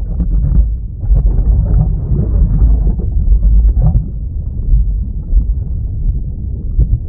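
Volcanic eruption: a loud, deep rumbling with crackles running through it, easing slightly after about four seconds.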